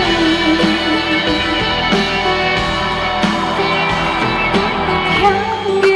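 Live band playing the accompaniment of a pop song, guitar to the fore, in a short gap between sung lines.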